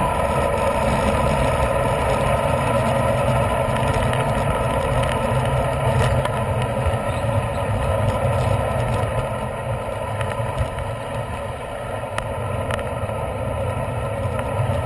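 Wind rushing over a bicycle-mounted camera's microphone and tyre rumble on the road while riding, with a few faint clicks or rattles. The noise eases a little about ten seconds in.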